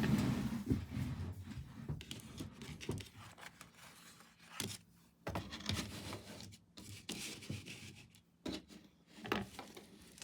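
Paintbrush rubbing and scraping over a canvas in short, irregular strokes, with a few small knocks; the strokes are busiest in the first second or two.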